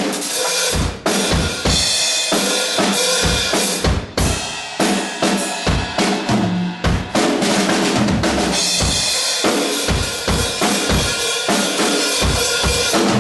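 Full rock drum kit played as a beat for the sound check: kick drum and snare hits under a continuous wash of cymbals.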